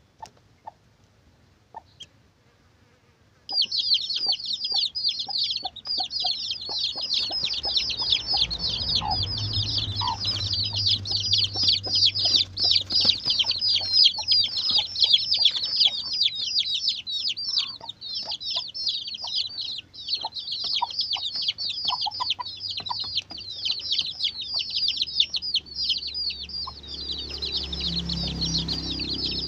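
A brood of domestic chicks peeping: a dense, continuous chorus of many rapid, high-pitched, falling cheeps that starts suddenly about three and a half seconds in, after a few faint clicks.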